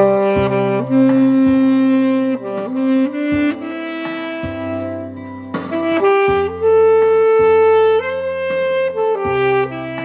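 Alto saxophone playing a slow melody in long held notes over a backing track with a bass line.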